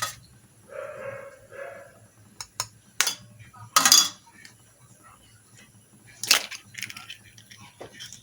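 Eggs being cracked: a few sharp cracks and clinks of eggshells struck against the rim of a bowl, the loudest about four seconds in. A short voice-like sound comes about a second in.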